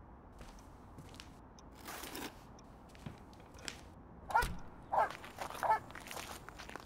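Three short honks in quick succession, each bending in pitch, after a stretch of faint scattered noises.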